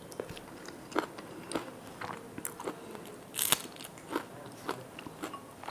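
A person chewing and biting food up close, with a run of short crunchy clicks and one louder, sharper sound about three and a half seconds in.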